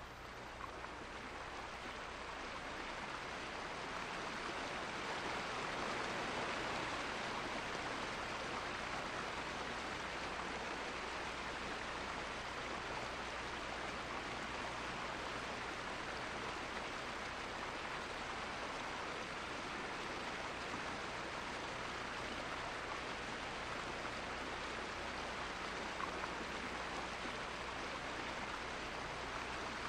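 Running water of a stream, a steady, even rush that fades in over the first few seconds and then holds level.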